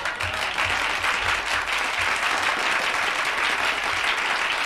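Live audience applauding, with a few low thumps in the first two seconds.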